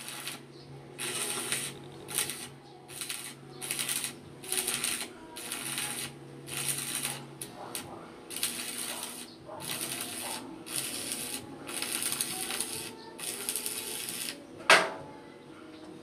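Stick (arc) welder laying a series of short welds on a steel frame, each a crackling, sizzling burst lasting under a second, about one a second with brief pauses between. Near the end, a single loud metal clank.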